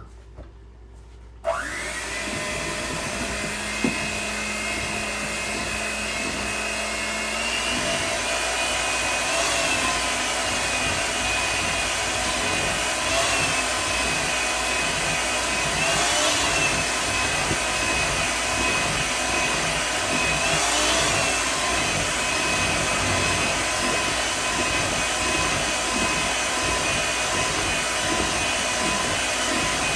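Electric hand mixer switched on about a second and a half in, then running steadily with a high motor whine as its beaters whip butter and powdered sugar, the pitch swelling slightly every few seconds.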